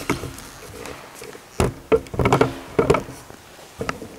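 Irregular sharp knocks and slaps, about half a dozen, several of them close together about two seconds in.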